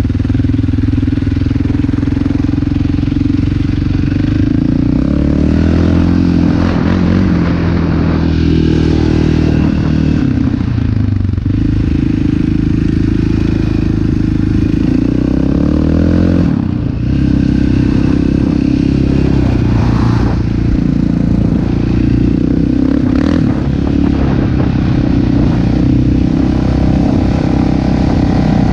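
Sport quad (ATV) engine running under way, heard from on board. Its pitch rises, falls and dips several times as the throttle changes.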